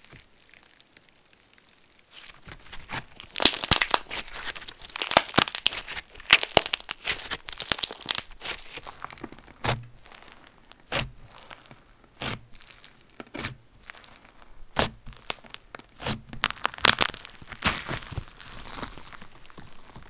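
Clear slime with gold glitter being stretched, squeezed and pulled apart by hand, with dense crackling and popping. It starts about two seconds in and comes in uneven bursts as the slime is worked.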